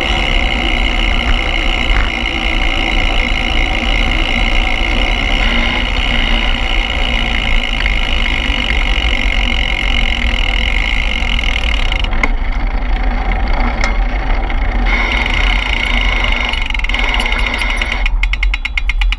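Steady running noise of a vehicle in motion, with a deep rumble and a couple of steady high whining tones that drop away for a few seconds past the middle. Rapid, evenly spaced ticking starts near the end.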